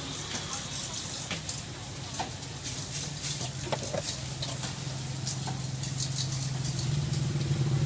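Street-food stall background: a steady low hum, growing louder near the end, with scattered light clicks and crackles over it.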